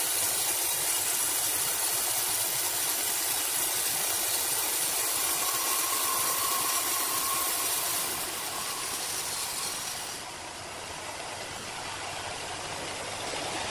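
Horizontal band sawmill cutting through a large green ironwood log: a steady hissing rush of the blade in the wood over the running machine, getting quieter about eight seconds in.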